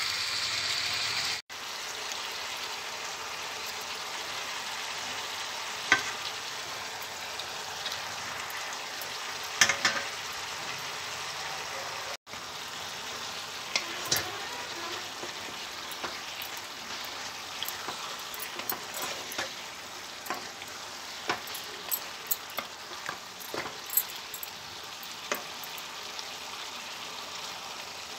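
Chicken pieces with onions and green chillies sizzling steadily in a nonstick pan, with sharp clicks and scrapes of a wooden spatula against the pan as it is stirred, more often in the second half.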